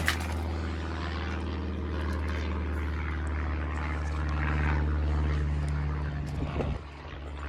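A steady, low motor drone that swells slightly, then cuts off near the end.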